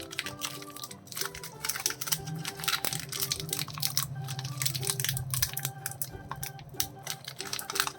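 Plastic biscuit wrappers crinkling and tearing open, a dense run of irregular crackles, over background music.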